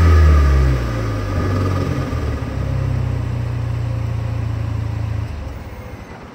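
A 2017 Camaro's turbocharged 2.0-litre four-cylinder, breathing through a 3-inch Borla cat-back exhaust and Injen cold-air intake, drops from a rev back to a steady idle. The engine cuts out about five and a half seconds in.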